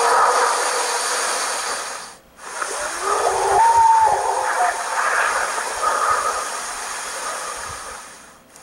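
Wavering howls over a steady hiss. The sound breaks off briefly about two seconds in, then a howl glides up to a held higher note around the fourth second, with a shorter note near six seconds. The howls are presented as a possible Bigfoot and likened to a train.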